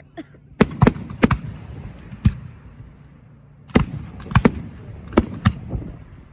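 Fireworks going off: a run of sharp bangs at irregular intervals, some in quick pairs, with a low rumble in between.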